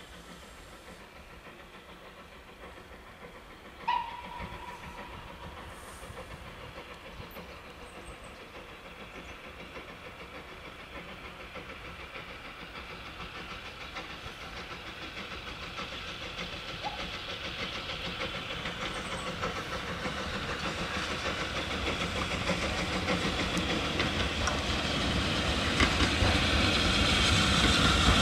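Steam locomotive hauling a goods train on the approach, its running noise growing steadily louder as it comes closer. A short whistle sounds about four seconds in.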